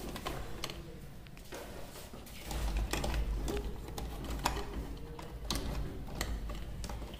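Scattered clicks and taps of hands handling wires and plastic miniature circuit breakers in a distribution board. A low rumble joins about two and a half seconds in.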